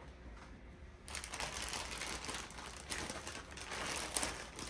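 Packaging crinkling and rustling as sock pairs are handled, a dense crackle that starts about a second in and keeps going.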